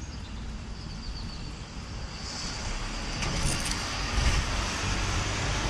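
A motor vehicle's engine rumble with tyre hiss, growing steadily louder over the last few seconds as it approaches.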